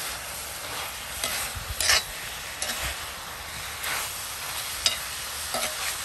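A metal spoon stirring and scraping chicken in coarse garlic masala around an iron kadai, over a steady sizzle of frying. Several sharp scrapes and knocks of the spoon against the pan stand out.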